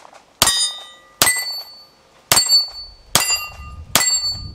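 Grand Power X-Calibur 9mm pistol fired five times at a steady pace, a shot about every second. Each shot is followed by the high ring of a steel target being hit.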